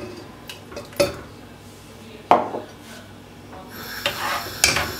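Metal spoon stirring thick boiling pea purée in an enamel pot, knocking sharply against the pot a few times, with a scraping swish that grows louder near the end.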